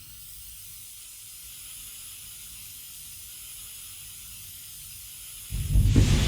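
Flamethrower sound effect: a steady high hiss of pressurised gas, then about five and a half seconds in a sudden, much louder fire blast with a deep rumble underneath.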